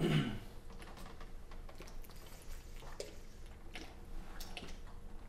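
A person picking up a glass and drinking from it between songs, with faint small clicks, sips and swallows.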